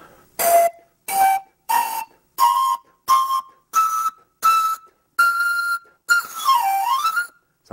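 Homemade panpipes of black plastic straws stoppered with modeling clay, blown as a rising scale: eight short, breathy notes climbing one after another, then a longer note near the end that dips in pitch and comes back up.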